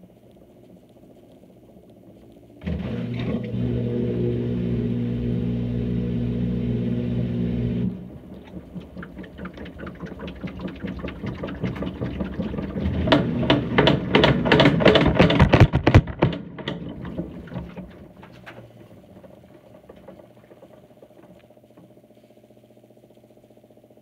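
Samsung top-loading washing machine spinning, heard from inside the drum: a loud steady motor drone starts suddenly a few seconds in and cuts off about five seconds later. Then comes dense rattling and knocking that builds and fades over about ten seconds as the drum slows, leaving a low hum.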